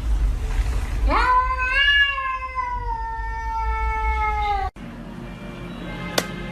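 A cat giving one long meow, about three and a half seconds long, that rises sharply at the start and then slowly sinks in pitch before cutting off abruptly. Afterwards there is a steady low hum and a single sharp click.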